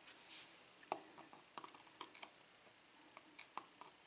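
Faint, scattered small metallic clicks and taps: tweezers picking lock pins off a pin tray and setting them into a pin-tumbler lock cylinder as it is put back together.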